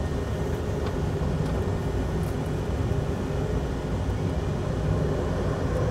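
Simulated jet engine noise from a Citation CJ flight simulator: a steady rumble with a faint hum, as the throttles are brought up for takeoff.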